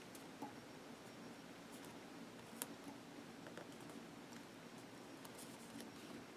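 Faint handling of paper planner stickers: a few soft ticks and rustles as a label sticker is peeled and pressed onto a planner page, over a low steady hum.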